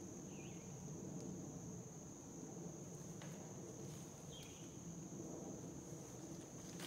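A steady high-pitched insect drone, with two short bird chirps, one about half a second in and one a little past four seconds, and a few faint footsteps in dry leaf litter.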